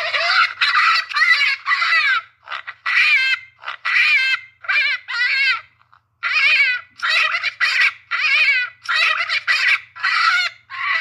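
Cape hare calling: a rapid series of short, wavering squeals, about two a second, with a brief pause partway through.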